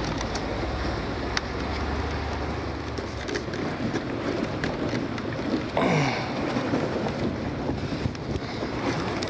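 Wind buffeting the microphone on an open motorboat, with a low boat-engine hum in the first few seconds and a brief falling whoosh about six seconds in.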